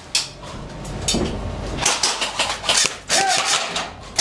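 A run of sharp clacks and knocks, about four a second, starting about two seconds in after a single click at the very start.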